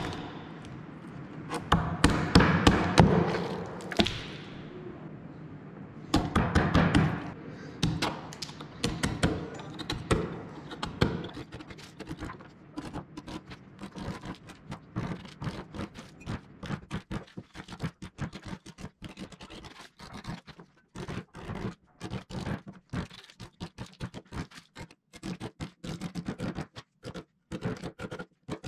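Rubber mallet striking a wood chisel to chip bark off an alder root slab: a long run of dull thunks that settles into a quick, even tapping of several blows a second.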